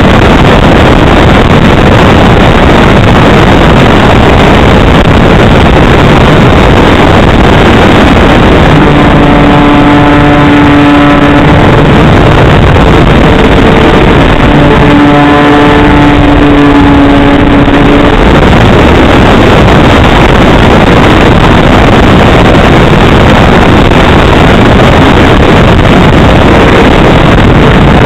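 Onboard audio from a NexStar RC plane in flight: loud, distorted wind rush on the microphone mixed with the buzz of the plane's motor. The motor's steady pitch shows through twice for a few seconds near the middle.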